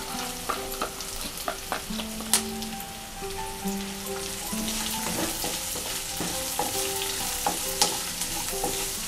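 Chopped onions frying in hot oil in a ceramic-coated kadai, sizzling steadily while a wooden spatula stirs them, with frequent short knocks and scrapes of the spatula against the pan.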